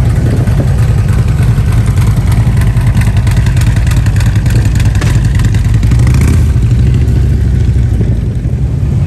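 Motorcycle engine running close by with a steady deep rumble, its higher sound easing off after about six seconds.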